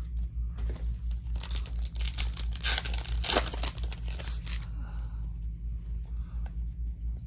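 Plastic-foil trading-card pack wrapper being torn open and crinkled, starting about half a second in and stopping after about four seconds.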